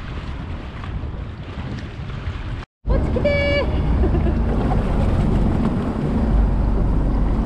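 Wind buffeting the microphone over rough sea. After a cut about three seconds in, a motor boat running through choppy waves, its hull throwing spray with a heavy low rumble, and a brief high steady tone just after the cut.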